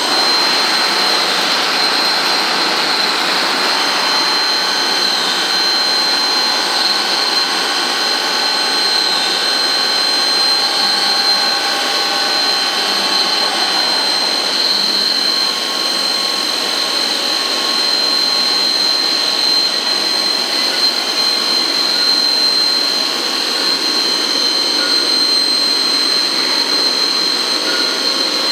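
Biglia B470 YMS Quattro CNC lathe running: a steady machine whine and hiss with a high steady tone. A set of lower tones shifts about halfway through.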